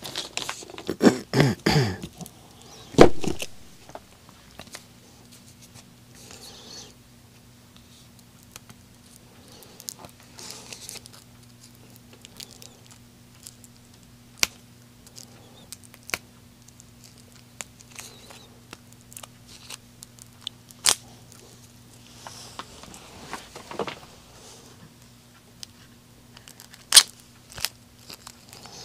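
Plastic bags crinkling as they are gathered up by hand, then a thump about three seconds in. After that come sparse light clicks and soft rustles of cards and cardboard being handled and set down.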